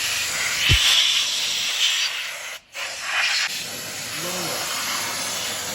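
Steady hissing of a pressurised spray, cutting out briefly about halfway before starting again.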